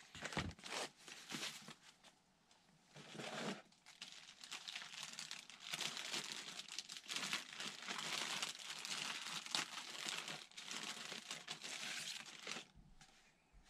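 Thin clear plastic packaging bags crinkling and rustling as wrapped parts are handled and unwrapped. The crackle is sparse at first, then continuous from about three seconds in, and dies away near the end.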